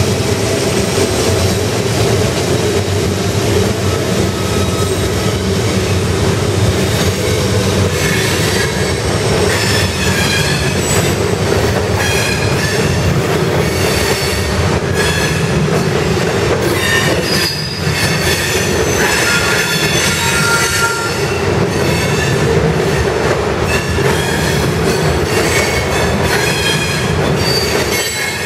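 Freight train rolling past close by: the trailing diesel locomotive's engine drone in the first seconds, then covered hopper cars rumbling and clattering over the rails. From about eight seconds in, the wheels squeal again and again in short high-pitched tones.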